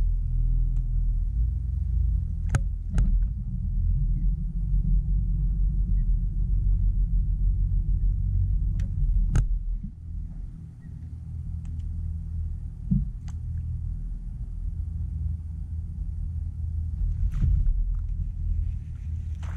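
Steady low rumble on a bass boat's front deck, with a few sharp clicks and taps scattered through it.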